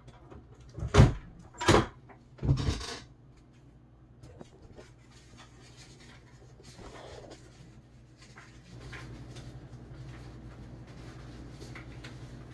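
Three loud knocks less than a second apart, the third one longer, then a low steady hum sets in about two-thirds of the way through.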